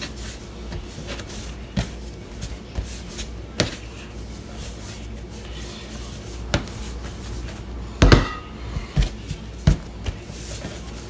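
Hands shaping bolillo bread dough into balls on a work surface: scattered soft knocks and thumps, the loudest a short cluster about eight seconds in, over a steady low hum.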